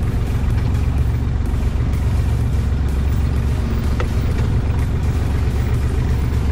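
Engine of a side-by-side off-road vehicle running steadily as it drives along a dirt trail, a low, even drone.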